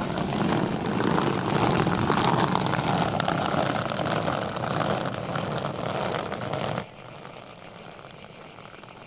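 Two wheeled suitcases rolling along an asphalt driveway, a loud continuous rolling rattle that cuts off suddenly near the end. Crickets chirp steadily underneath.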